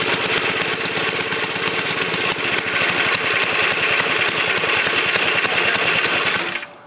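Tecumseh H50 5 hp single-cylinder flathead engine running steadily with a fast, even beat, then stopping suddenly near the end. The centrifugal clutch is stuck engaged, so the drive wheel keeps turning even at idle.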